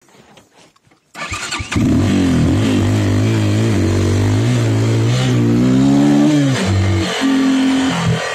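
Yuki İzci enduro motorcycle engine starting about a second in, then revved up and down for several seconds before dropping back and running steadier near the end.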